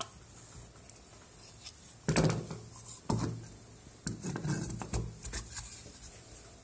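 A plastic dental duplicating flask being taken apart by hand, the red plastic sleeve with its silicone mould coming off the base. Its parts knock and rub together, loudest about two and three seconds in, then a longer stretch of rubbing and clicks from about four seconds in.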